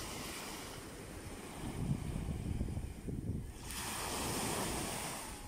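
Small waves breaking on a sandy beach and washing up the shore, with a louder hiss of surf running up the sand from about four seconds in. Wind rumbles on the microphone underneath.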